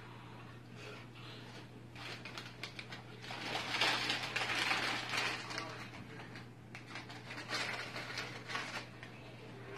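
Hot Fries snack bag crinkling and rustling in irregular bursts as it is handled and tipped up to the mouth, loudest a few seconds in, over a steady low hum.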